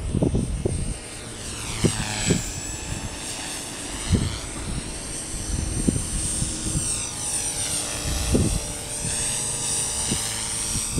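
Radio-controlled model helicopter flying: a steady high whine from its rotor and drive, its pitch sweeping down and back up twice as the machine moves and turns.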